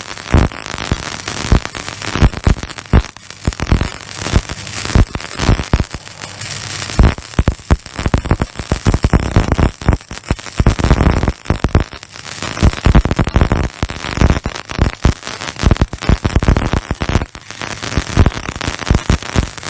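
Electric arc welding crackling and sputtering: a dense, irregular stream of sharp pops and spatter that goes on without a break.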